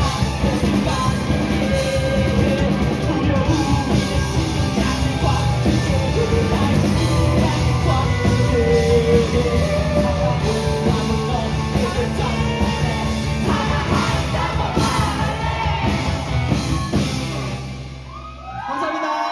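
Live rock band playing with drum kit, guitars and a singing voice, the song coming to its end about 18 seconds in, followed at once by the audience cheering and whooping.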